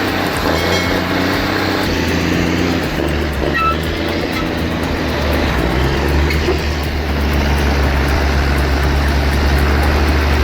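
A large vehicle or machine engine running steadily: a continuous low hum with an even mechanical noise over it.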